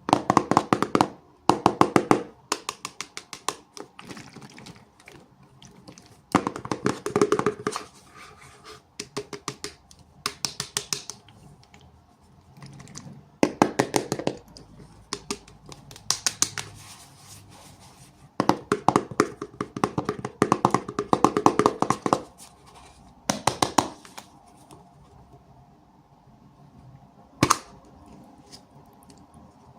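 Hands opening small plastic toy packaging in repeated bursts of rapid crackling and clicking, each lasting a second or two, with short pauses between them.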